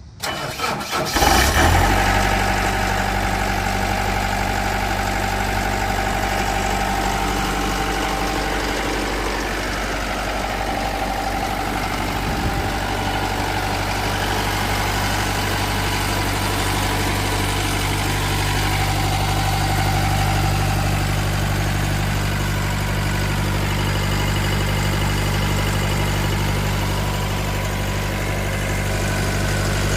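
Deutz diesel engine of an EZ-Rider CC7878XL ride-on concrete saw cranking briefly and starting about a second in, then idling steadily.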